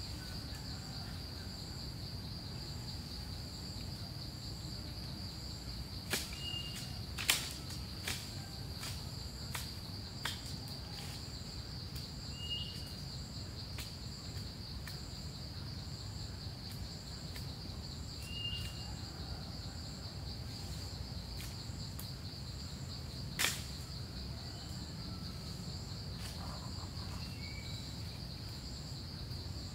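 Forest insects: a steady high-pitched drone of crickets or cicadas, with a second, higher insect trill pulsing evenly behind it. A few sharp clicks or snaps come through, the loudest about seven seconds in and again near twenty-three seconds, along with three short high chirps about six seconds apart.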